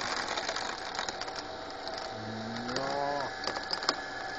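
Drill press running as its bit bores into a laptop, with a steady motor hum under continual light crackling and clicking of plastic and electronics being cut.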